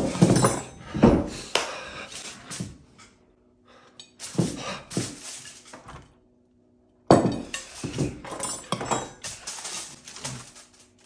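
Aluminium foil crinkling and dishes clattering on a table as a foil-covered bowl and plates are handled, in three bursts with short quiet gaps between them.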